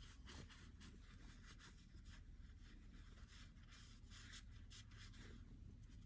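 Near silence, with faint, irregular rubbing and scraping strokes from AR-15 rifle parts being handled and wiped during cleaning.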